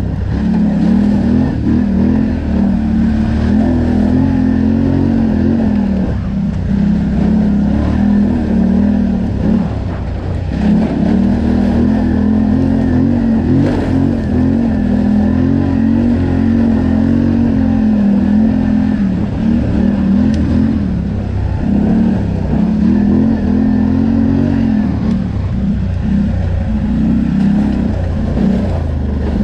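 ATV engine running under throttle on a trail, its note rising and falling as the throttle is worked, with several brief let-offs.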